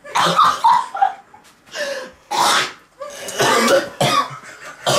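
Two young men coughing and gagging in repeated bursts, close to retching: a disgust reaction to the lollies they have eaten, which turn out to have been in someone's mouth.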